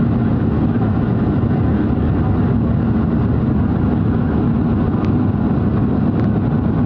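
Steady roar inside the cabin of a Boeing 737-700 climbing after takeoff: its CFM56-7B turbofan engines and the rushing airflow, with a faint steady hum. A few faint ticks come through about five seconds in.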